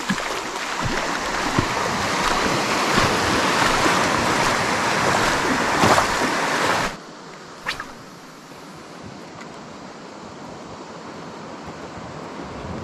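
Outdoor wind and surf noise, a loud even rush on the microphone that drops suddenly about seven seconds in to a quieter steady hiss, with one short click just after the drop.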